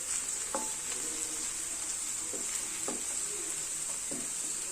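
Onions and ginger-garlic paste sizzling steadily in hot oil in a pan while being stirred and sautéed, with a few light spatula scrapes against the pan; the raw smell of the paste is being cooked off.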